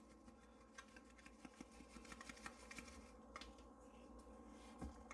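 Faint, irregular ticking and pattering of dry rub being shaken from a plastic seasoning shaker onto a bologna chub, with a slightly louder soft knock near the end.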